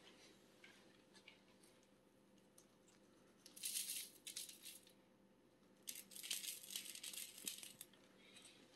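Dried catnip being shaken out of a handheld canister, the dry leaves rattling inside. Two bursts of rattling, the first about three and a half seconds in and the second about six seconds in, each lasting a second or two.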